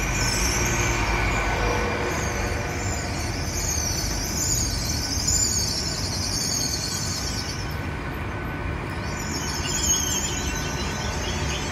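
GWR Class 802 train pulling in along the platform, a steady low rumble with a high-pitched, wavering squeal from its wheels and brakes, which drops out for a second or so about two-thirds of the way through and then returns.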